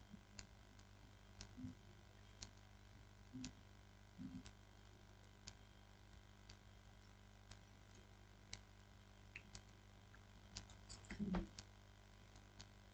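Near silence: a steady low hum with faint scattered clicks about once a second, and a slightly louder cluster of clicks a little after eleven seconds.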